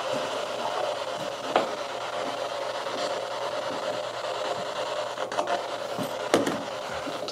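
Steady hiss throughout, with a few light clicks and knocks from a small device being handled and set down on the floor, the sharpest about a second and a half in and near the end.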